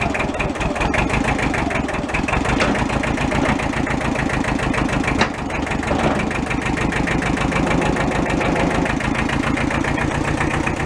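Compact tractor's engine running steadily close by, with an even, rapid firing pulse, while it works the front-end loader. A single sharp knock sounds about five seconds in.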